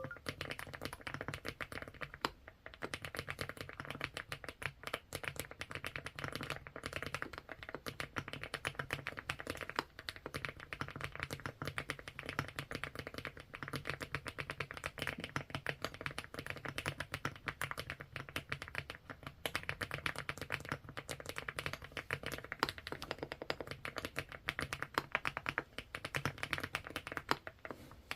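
Mechanical keyboard fitted with SPM Pebble switches being typed on steadily: a dense run of rounded key clacks, the 'dogal-dogal' sound the switches are prized for.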